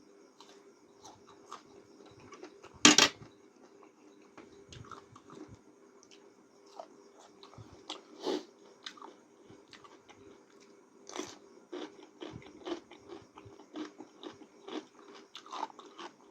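A person eating noodles close to the microphone: chewing and mouth sounds made of many short clicks and smacks, with one louder noise about three seconds in.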